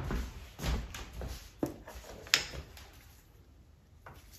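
Metal hand tools knocking and scraping against the greasy cast-iron parts of a Bridgeport milling machine as it is taken apart. There is a handful of short clunks and scrapes, the sharpest about two seconds in, and then only a faint tick.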